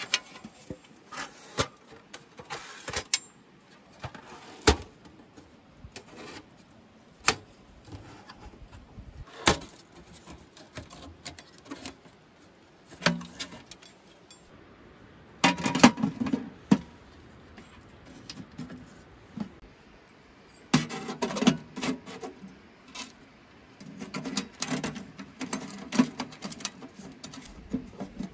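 Thin titanium camp wood stove being unpacked and assembled by hand: scattered sharp metal clicks and knocks as plates are lifted and clipped together, with bursts of clattering about halfway through and again near the end.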